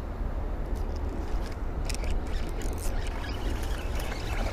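A small hooked fish splashing at the water's surface as it is reeled in: a run of short, sharp splashes from about a second in, over a steady low rumble.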